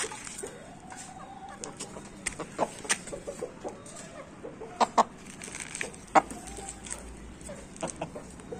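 Gamefowl chicken clucking in short, low calls. Many sharp clicks and taps are scattered through, the loudest about five and six seconds in.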